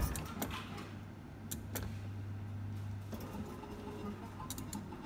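Steady low electrical hum, with a few sharp clicks scattered through.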